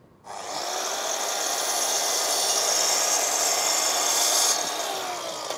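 Sliding mitre saw starting up and cutting through a hardwood board, then the blade spinning down with a falling whine after about four and a half seconds.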